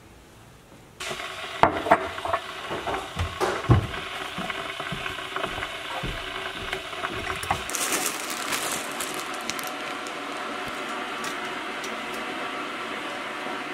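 Kitchen sounds of making a hot drink: a metal spoon scraping and clinking in a glass jar and against ceramic mugs, a quick run of sharp clicks and knocks starting about a second in. After that comes a steady hiss.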